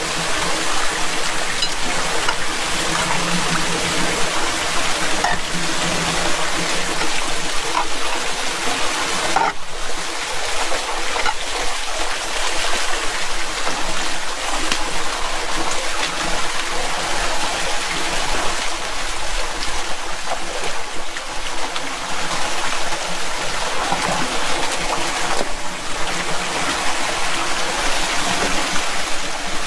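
Floodwater pouring steadily into a street storm drain with a continuous rushing, gurgling flow.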